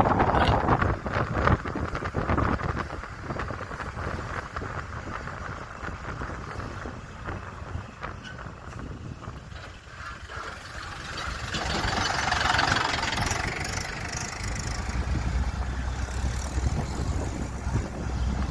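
Car on the move: steady engine and road rumble, with a swell of louder, brighter rushing noise for a couple of seconds past the middle.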